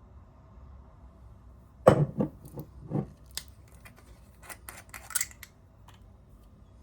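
Scissors snipping in a kitchen: a run of sharp snips and clacks starting about two seconds in, heavier at first, then lighter clicks for a couple of seconds more.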